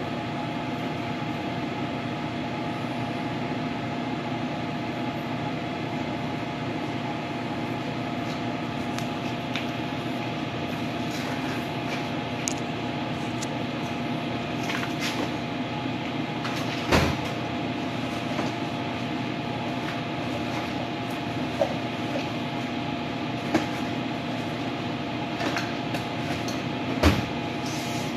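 Metal lathe running steadily with a constant hum, turning an aluminium shift knob. Small clicks come through now and then, with two louder sharp knocks, one past the middle and one near the end.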